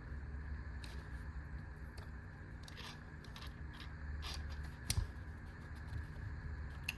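Small hand tools being handled and packed into a pouch: light rustling and scattered clicks, with one sharper click about five seconds in, over a low steady hum.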